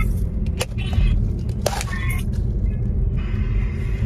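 Steady low rumble of a car's engine and tyres heard from inside the cabin while driving, with a couple of short sharp clicks.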